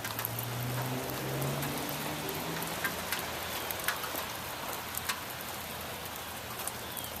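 Wet snow falling, a steady hiss with scattered ticks of flakes and drops landing, like light rain. A faint low hum sounds in the first two seconds or so, then fades.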